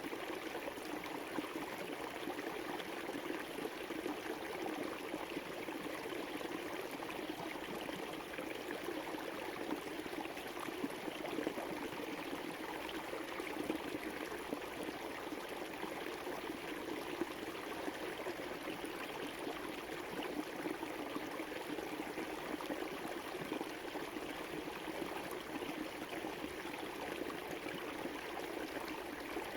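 A river running steadily over rocks, a continuous rushing and burbling with small splashes throughout.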